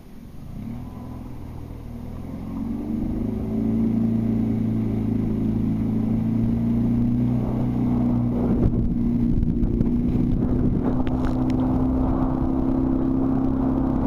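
Outboard motor of an inflatable boat speeding up over the first few seconds, then running steadily at higher throttle.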